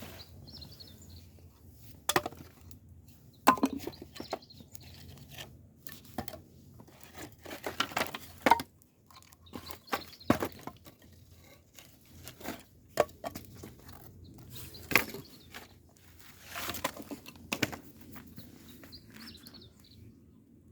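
Irregular sharp snaps, cracks and crunching, like dry twigs and kindling being broken and handled to build a fire, with a few longer rustling bursts and faint bird chirps.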